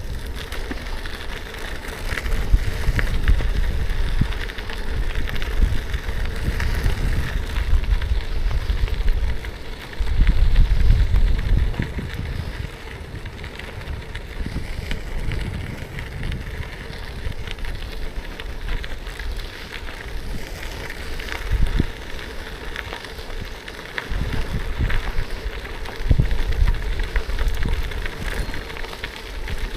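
Cube gravel bike's tyres rolling and crunching over gravel, with gusts of wind rumbling on the microphone that come and go in stretches of several seconds.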